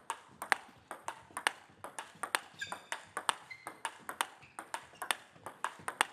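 Table tennis rally: the celluloid-type ball clicking sharply off the two paddles and bouncing on the Tibhar Smash 28/R table, several clicks a second in a steady back-and-forth rhythm.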